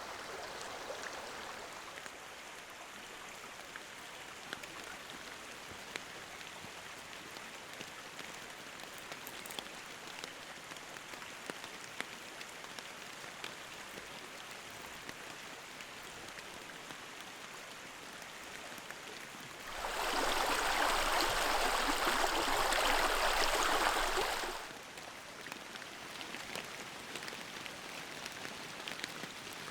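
Steady rain in the forest with a stream running and separate drops ticking. About two-thirds of the way through, a much louder rushing noise comes in sharply, holds for about five seconds, then drops back.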